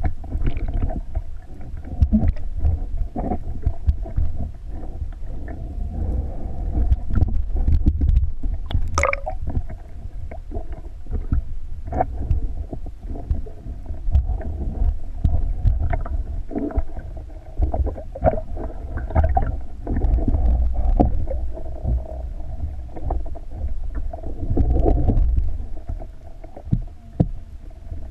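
Muffled underwater rumble and sloshing of water around a camera held just below the sea surface, with scattered clicks and crackles and a sharper crackle about nine seconds in.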